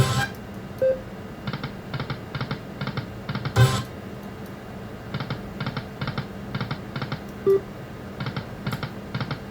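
Aristocrat Lightning Link video slot machine playing its electronic game sounds: rows of quick, even ticks about five a second as the reels spin and stop, with a sharp hit at the start and again about three and a half seconds in, and a couple of short beeps.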